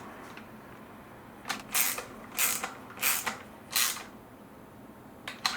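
A screwdriver driving a Phillips screw into the Dyson V10's plastic housing: four short rasping turns in an even rhythm, then a couple of sharp clicks near the end.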